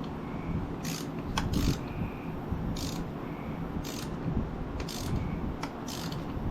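Ratchet wrench clicking in short bursts about once a second as it is swung back and forth, turning a fastener on a Honda Reflex scooter's rear wheel assembly.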